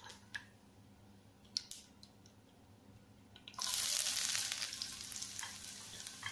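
Mustard seeds popping now and then in hot coconut oil, then about three and a half seconds in a sudden loud sizzle as chopped onion drops into the oil. The sizzle settles into steady frying with occasional pops.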